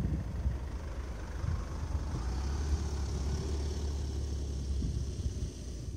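Steady low rumble of outdoor background noise, with no voice from the radio.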